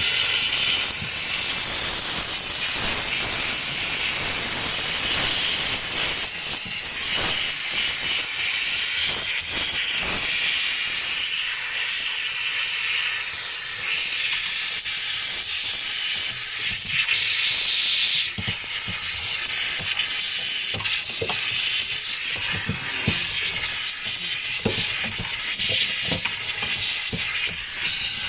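Handheld steam cleaner jetting steam onto the ice in a freezer to melt it: a steady, loud hiss.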